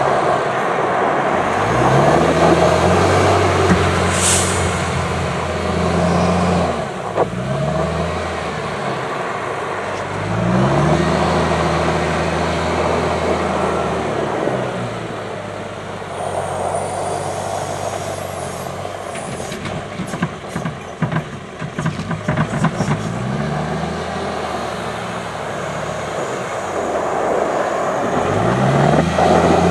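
Volvo L70G wheel loader's diesel engine running and revving up and down several times as the machine drives, lifts its bucket and reverses. A short high hiss comes about four seconds in, and a run of clatter near the middle as the load of snow is dumped into the truck's tipper body.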